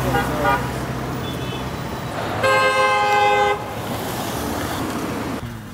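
A car horn sounds once, a steady blare of about a second midway through, over the low steady hum of a car engine.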